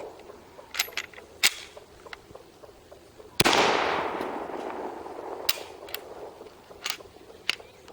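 A single 9mm shot from a Ruger P95 pistol about three and a half seconds in, its report echoing and dying away over a couple of seconds. A few short sharp clicks come before and after it. The pistol is one that keeps jamming, failing to eject its empty cases.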